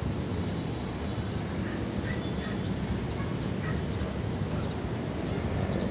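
Steady outdoor background rumble of wind and distant city noise, with faint sharp ticks repeating about twice a second.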